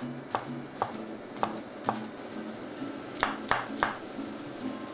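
Kitchen knife chopping on a wooden cutting board: a string of sharp single taps at uneven intervals, several coming close together about three seconds in.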